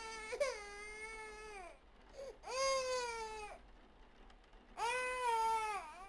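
A baby crying in three long wails with short pauses between them, each wail dropping in pitch at its end.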